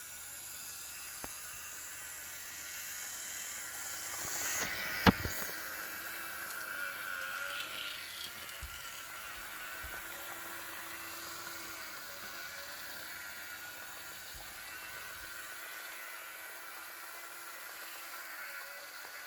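Model BB 67001 locomotive running slowly on its track, its freshly rebuilt small electric motor whirring steadily with a faint whine. There is a sharp click about five seconds in.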